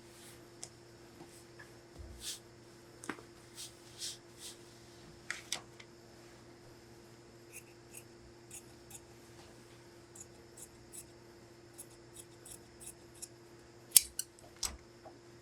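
Tailor's shears snipping through coat fabric in a run of short cuts, the loudest near the end.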